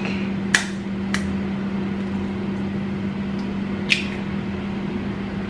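A kitchen appliance's steady hum, with three short sharp clicks of a utensil against a dish about half a second, a second and four seconds in.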